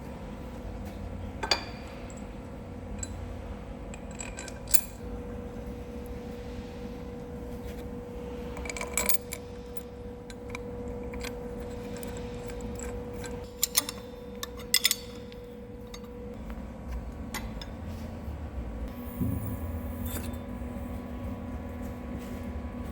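Steel pins and V-blocks being handled on a milling machine table: scattered sharp metallic clinks and knocks, a cluster of them a little after the middle, over a steady shop hum with a held tone through the middle.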